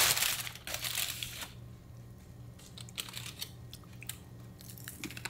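Close-up chewing and crunching of fried pork rinds (chicharrones): loud crunches for about the first second and a half, then softer chewing with scattered small crackles.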